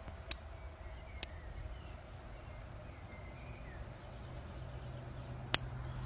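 Three sharp clicks of a Victorinox Tinker Small Swiss Army knife's blade and tools snapping into place against their backsprings, two about a second apart near the start and one near the end, over a low steady background hum.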